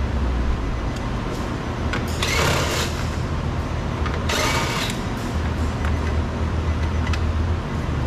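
Two short bursts of tool noise, about two and a half and four and a half seconds in, as the two hidden screws holding a Nissan Frontier door trim panel are backed out, over a steady low hum.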